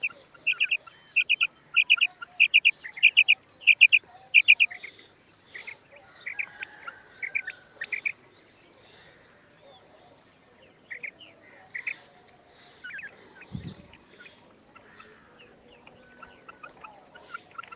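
Female quail calling: a run of short, high, repeated notes a little under two a second for the first five seconds, then scattered calls. A single dull thump about three-quarters of the way through.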